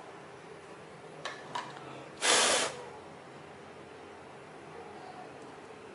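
A single short puff of blown air, about half a second long, onto a freshly glued joint of cut aluminium can strips, the way excess glue is blown off to make it dry faster; two light clicks of handling the can come just before it.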